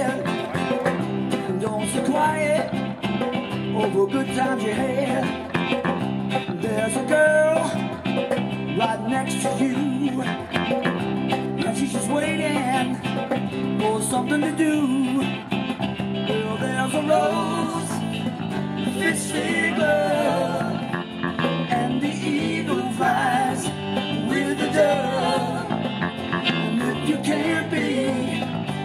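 Live band playing a song through a PA: electric guitars, acoustic guitar and a drum kit with steady cymbal beats, with singing over it.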